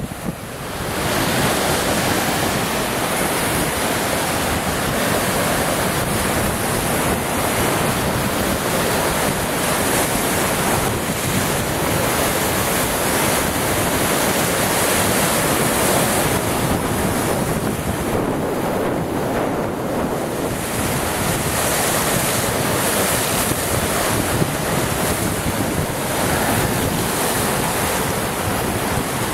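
Lake Superior waves breaking and splashing on a rock shoreline, a steady rush of surf, with strong wind buffeting the microphone.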